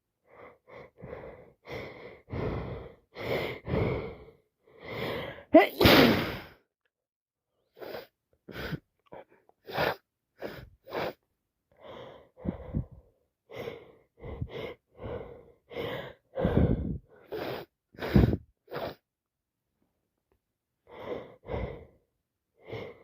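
A woman with a heavy head cold sneezing again and again, with short sharp in-breaths and sniffs between the sneezes. The loudest sneeze comes about six seconds in.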